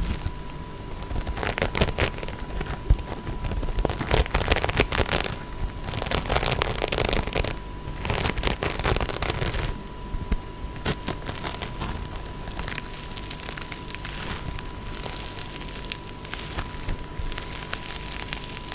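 Close-miked ASMR tapping and scratching: a dense run of crackly taps and scratchy strokes in uneven bursts, busier in the first half and sparser after about ten seconds. A faint steady high tone runs underneath.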